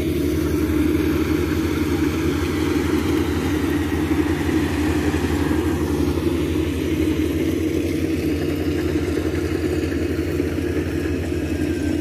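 Rice combine harvester's engine running steadily in the field, a constant drone that neither rises nor falls.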